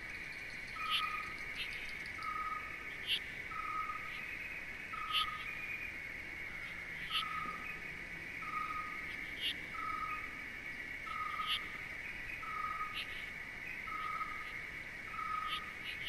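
Nature ambience: insects trilling steadily, with a short call repeated at an even pace about every second and a half and brief high chirps in between.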